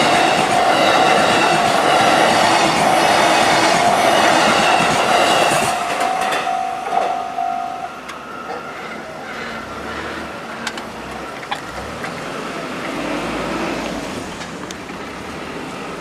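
JR East E233-series electric commuter train passing close by at a level crossing: loud rumble and wheel clatter on the rails, with a steady high tone over it. About six to eight seconds in, the noise drops off sharply as the train clears and runs away up the line, and a fainter rumble remains.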